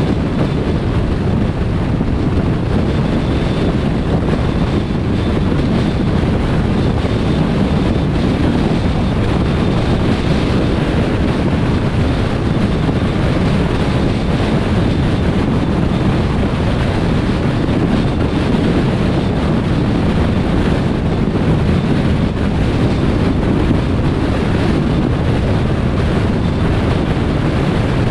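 Steady road and wind noise from a car driving along a motorway, heavy in the low end, with a faint high whine through roughly the first half.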